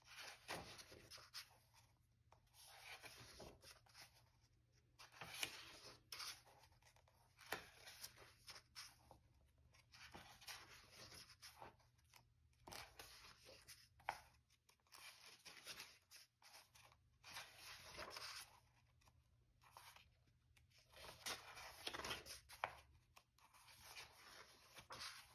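Pages of a paperback colouring book being turned one after another by hand: a faint rustle and swish of paper about every two to three seconds.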